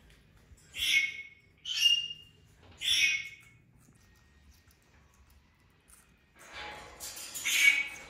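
Senegal parrot squawking: three short squawks about a second apart, then a louder run of calls near the end.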